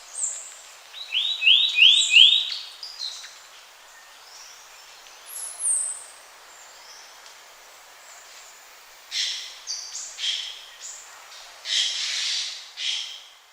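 Several wild birds calling over a faint steady hiss: a quick run of four upswept chirps about a second in, high thin whistles, and a cluster of noisier, rougher calls near the end.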